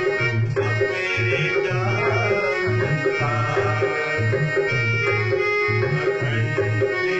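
Electronic keyboard playing a bhajan melody in held, sustained notes over a steady, evenly repeating percussion rhythm.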